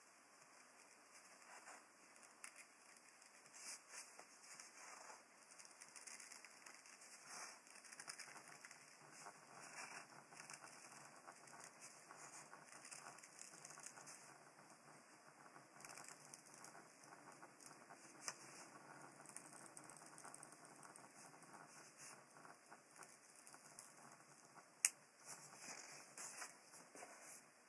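Faint, irregular snips of scissors cutting paper as the outline of a paper cutout is trimmed, with light rustling of the sheet being turned in the hand; one sharper click near the end.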